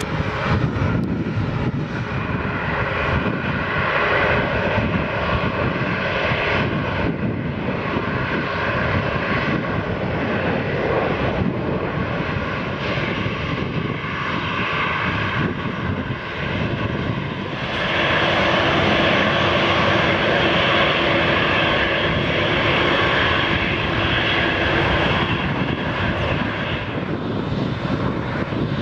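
Boeing 737-8 MAX's CFM LEAP-1B turbofan engines running as the jet taxis onto the runway: steady jet engine noise that grows louder about eighteen seconds in.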